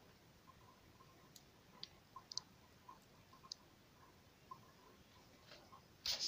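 Faint, irregular ticks and a few sharper clicks over near-silent room tone. Near the end there is a sudden, louder burst of handling noise as the phone camera is moved.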